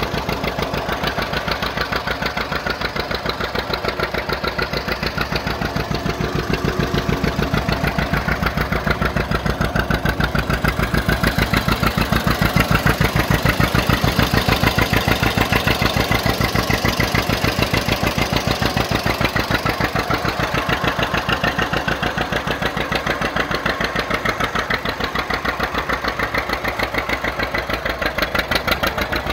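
John Deere 620's two-cylinder engine running with a steady, rapid, even beat of exhaust pulses, getting a little louder midway.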